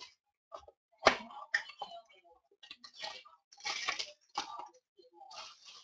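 Foil trading-card pack wrapper crinkling and tearing open, with cards being handled: a string of irregular crackles and snaps, the sharpest about a second in.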